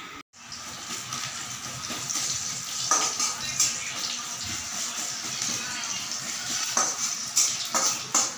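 Chopped pieces sizzling steadily as they fry in oil in an aluminium kadai, with a metal spoon stirring and clinking against the pan several times, the clinks coming closer together near the end.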